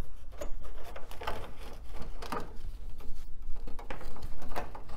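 An IDE ribbon cable being unplugged and pulled out of a computer tower: irregular clicks, scrapes and rustles of the plastic connector and flat cable against the metal case.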